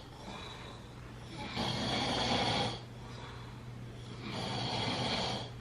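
A sleeping person snoring, two long snores about a second each, a few seconds apart, over a steady low hum. The snoring is still loud despite a remedy being tried, which the listener doubts is working.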